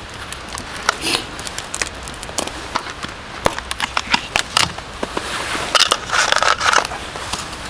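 Plastic food packaging being handled and opened: irregular sharp clicks and crackles, with a louder spell of crinkling and rustling about five to seven seconds in.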